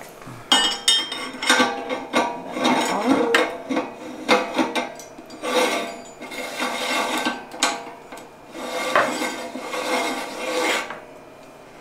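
Metal clinking and scraping as a threaded steel retaining ring is fitted and screwed onto an electric meat grinder's head, holding the freshly fitted small grinding plate. The irregular clicks and rasps die away about a second before the end.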